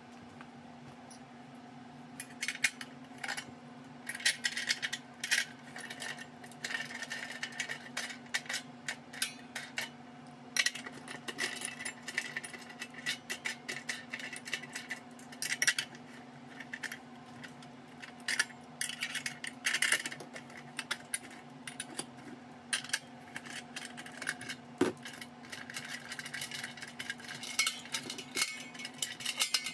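Metal clicking and rattling as the wing nuts on a stainless-steel autoclave's swing-bolt lid clamps are spun loose and the bolts knock against the lid rim, in bursts of quick clinks, over a steady low hum.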